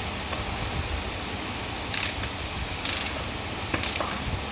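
Ratchet wrench clicking in short rasping bursts about a second apart, starting about two seconds in, as bolts on a Mercedes gearbox's high-low range unit are tightened.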